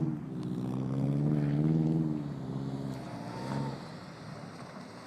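A car engine running hard while drifting on snow, its pitch rising and dipping, then fading away after about three and a half seconds.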